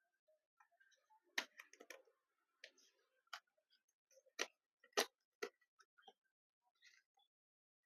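Quiet, irregular sharp clicks and taps, about a dozen, the loudest about a second and a half in and about five seconds in: small tools and laptop parts being handled during disassembly.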